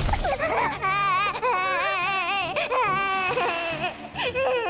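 A cartoon baby seal's voice crying and wailing in a high, wavering sob, with a short break about four seconds in.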